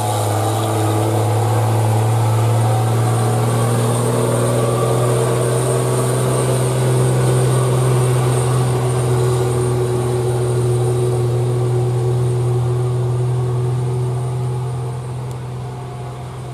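Diesel engine of a dump truck loaded with rock, pulling steadily up a long climb with a low drone at a steady pitch. It fades over the last couple of seconds as the truck moves away.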